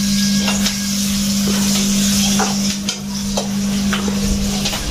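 Vegetables sizzling as they fry in a kadhai on a gas stove, with a spatula scraping and tapping against the pan in scattered sharp ticks. A steady low hum runs underneath.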